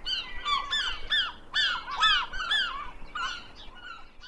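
A flock of birds calling: many short, overlapping calls, each rising and then falling in pitch, thinning out toward the end.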